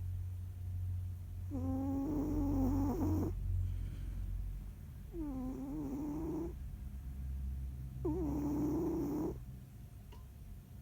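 A sleeping cat snoring: three squeaky, whistling snores, each about a second long and roughly three seconds apart, over a steady low rumble.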